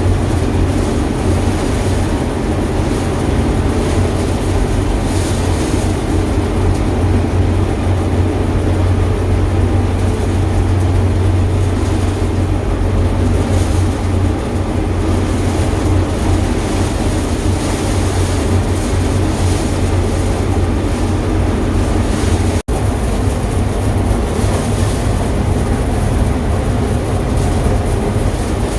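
Heavy farm machinery engine running steadily with a deep, continuous drone, broken by a momentary dropout about three-quarters of the way through.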